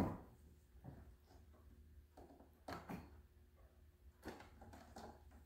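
Faint handling sounds: a few soft clicks and rubs as silicone water tubing is worked onto its fittings with needle-nose pliers, over a low steady hum.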